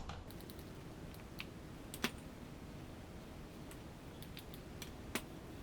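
Light clicks and clinks of metal parts and tools being handled during reassembly, with two sharper clicks, one about two seconds in and one near the end.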